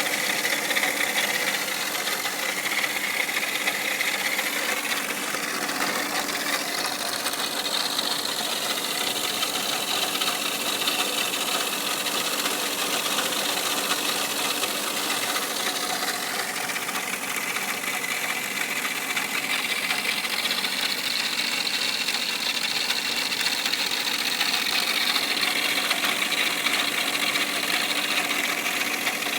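1996 Mercedes C280's straight-six engine running steadily with a fast mechanical clatter: the sound problem the owner is chasing.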